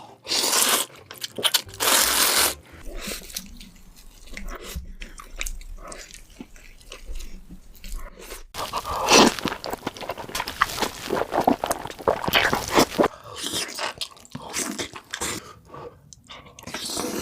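Close-miked crunchy biting and chewing of food in a mukbang, with loud irregular crunches.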